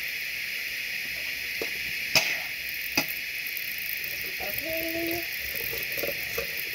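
Manual toothbrush scrubbing teeth over a steady hiss, with two sharp knocks about two and three seconds in and a brief hummed note near the end.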